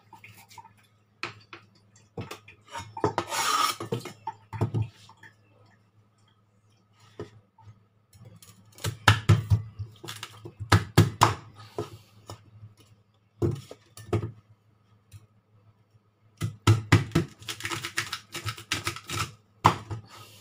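Cleaver chopping into a hard raw kudzu root on a cutting board: clusters of sharp knocks as the blade strikes through to the board, with a burst of scraping about three seconds in.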